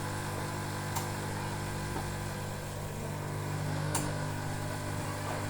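Steady low electrical hum, with two sharp clicks about three seconds apart.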